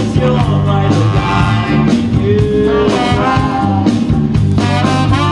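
Live band music, with saxophone and trombone playing melody lines together over a steady bass line.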